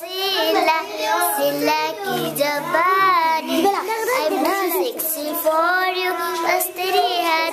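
Children singing a song, their voices carrying held and gliding notes.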